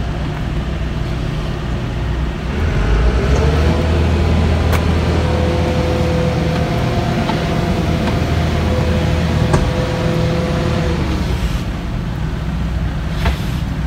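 Machinery of the standing Amtrak Empire Builder train humming with a steady low rumble. About three seconds in, a whine spools up, holds steady, and winds down near eleven seconds, with a few sharp clicks and a knock near the end.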